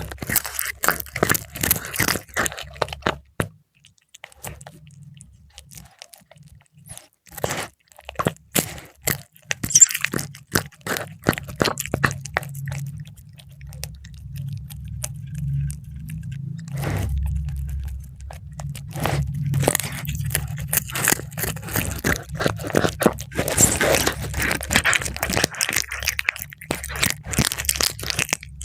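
A cat chewing crisp fried milkfish, with sharp crunches and clicks that come in bursts and ease off in between.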